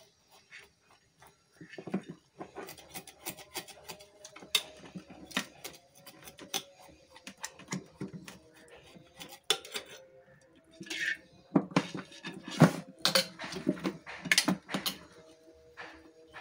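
Irregular clinks, knocks and scrapes of a knife against metal dishes and vessels while fish is being cleaned. They come in scattered runs and are loudest and busiest about two-thirds of the way through.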